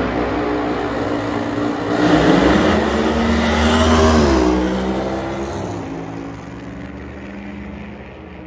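Drag racing cars running loud at the starting line, then launching about two seconds in. The engines climb in pitch as the cars accelerate, drop in pitch as they pass about four to five seconds in, and fade away down the track.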